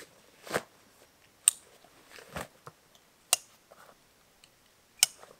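Tasmanian Tiger Raid Pack III nylon backpack being closed up by hand: the drawstring and fabric are pulled and handled, giving a string of about five short, sharp clicks and rustles spaced roughly a second apart.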